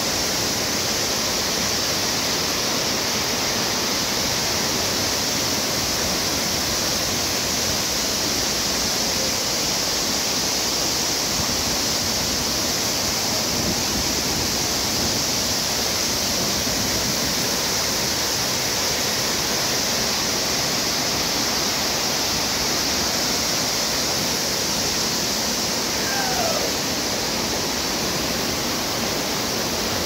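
Several waterfalls pouring down a cliff face into a rocky river, making a steady, unbroken rush of falling and churning water.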